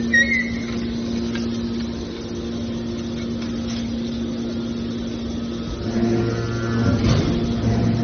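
Hydraulic scrap-metal baler's power unit running with a steady, loud machine hum. About six seconds in its note changes and it grows a little louder.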